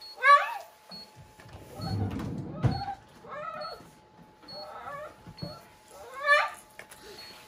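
Dog whining: a string of about five short rising cries, the first, just after the start, the loudest.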